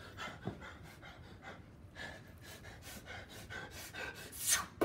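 A young man panting in quick, short breaths, then a loud breathy whoosh near the end as he mimes swinging a bat.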